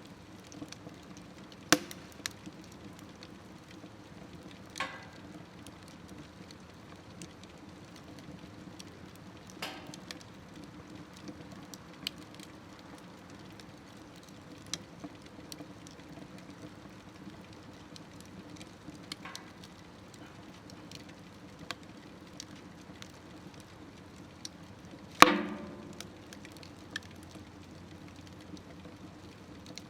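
Wood fire burning in a smokeless stove, crackling with scattered sharp pops over a steady low background; the loudest pop comes about 25 seconds in.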